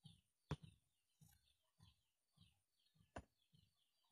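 Near silence, with faint birds chirping in quick short notes throughout, soft low thumps repeating about every half second, and two sharp clicks, one about half a second in and one near three seconds.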